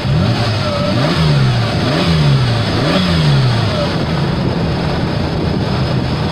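A 1987 Ford Bronco II's 2.9-litre V6 engine running. It is revved three times in quick rises and falls about a second apart, then settles back to steady running. The engine has just been brought back from a no-spark no-start and is being warmed up to burn off raw fuel.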